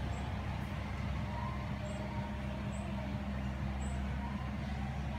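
A steady low mechanical hum made of several even, unchanging tones, with a light hiss above it.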